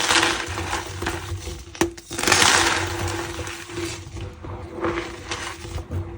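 Reformed gym chalk blocks crushed and crumbled by hand: gritty crunching in bursts, with a sharp crack about two seconds in followed by the loudest stretch of crumbling.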